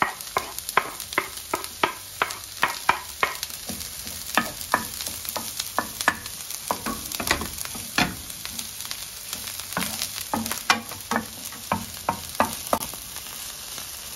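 Chopped onions sizzling in oil in a nonstick frying pan, while a wooden spoon stirs them, knocking and scraping against the pan about two or three times a second.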